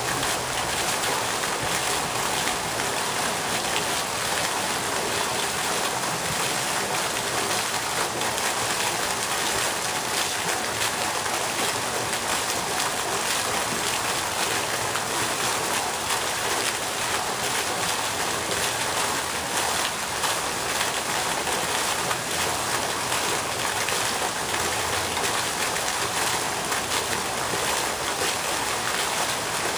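Pond fountain's vertical water jet falling back onto the pond surface, making a steady, unbroken splashing.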